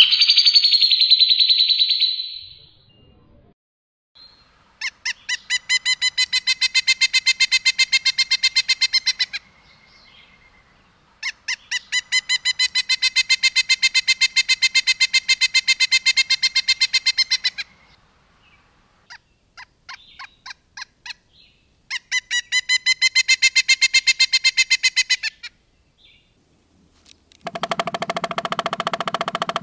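Songbird recorded for bird-training 'masteran': a harsh buzzy call first, then three long, rapid trills of evenly repeated sharp notes ('tembakan'), each lasting several seconds, with a few scattered short notes between. Near the end a lower, rougher sound starts.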